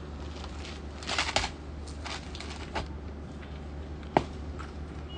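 Folded fabric being handled: a burst of rustling about a second in as a dress piece is pulled from a stack, a few light clicks, and one sharp tap a little after four seconds, over a steady low hum.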